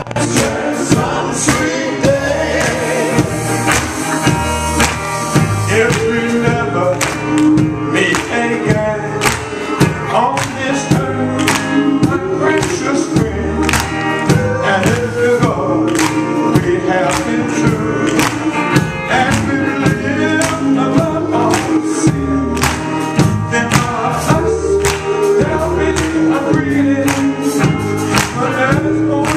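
Male gospel quartet singing live with band backing: bending vocal lines over bass and a steady percussion beat.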